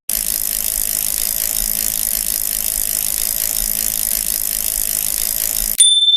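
Bicycle rear hub's ratchet freehub buzzing as the wheel spins freely, a steady rapid clicking that cuts off near the end, followed by a single ding that rings out and fades.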